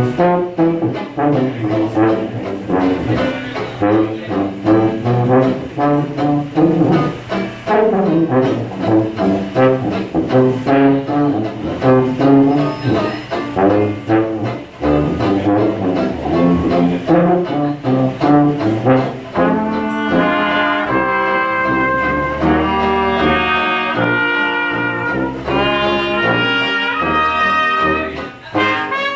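Traditional New Orleans jazz band playing live: trombone, trumpet, clarinet, banjo and tuba, with a steady strummed beat. About two-thirds of the way through the horns play together in long held notes over deep sustained tuba notes.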